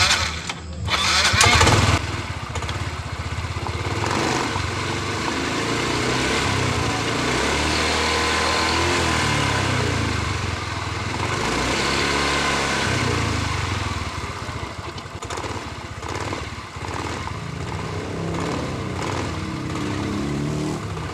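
Yamaha Mio i 125 scooter's single-cylinder engine starting about a second in, then running and revved up and down a few times, driving the CVT and gear case, whose transmission gear bearings have just been replaced.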